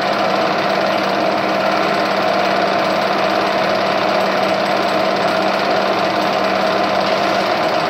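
A Whiting Quickwork power hammer running steadily, its ram hammering rapidly and continuously with no workpiece yet between the dies. A low hum in the drive drops out near the end.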